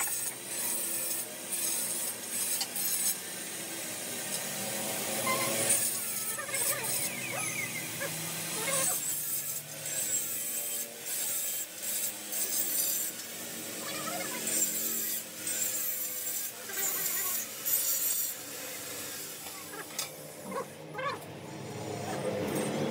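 Irregular hand scraping and rubbing on the stainless steel tube frame of a window grill, with scattered light taps and clicks.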